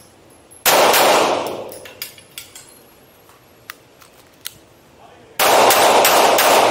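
Pistol shots on an indoor range, each with a long echo off the walls: a shot about two-thirds of a second in, a few light clicks in the lull, then a rapid string of shots starting about five and a half seconds in.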